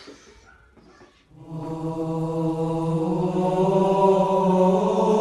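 A young man's voice singing one long, low held note that begins about a second in and rises slightly partway through.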